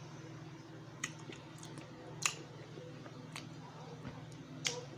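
Close-up eating sounds: four sharp clicks or smacks, roughly a second apart, with soft chewing over a low steady hum.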